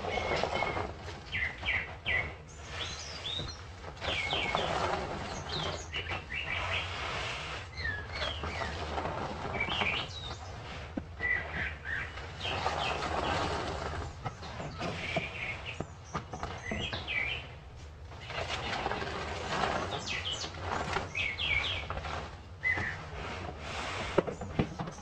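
Wild birds chirping and calling loudly over recurring bursts of splashing water as a soapy sponge is squeezed and rinsed.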